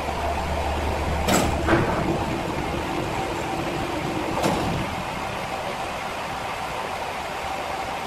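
Steady sawmill machinery hum, deeper for the first two seconds, with sharp knocks a little over a second in, again just after, and about four and a half seconds in.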